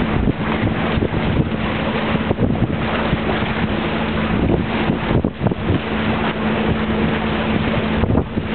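Wind buffeting the microphone in irregular gusts, over a steady low hum.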